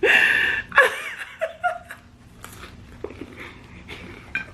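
A woman laughing breathily in the first second, then quieter chewing with a few small crunches of potato chips.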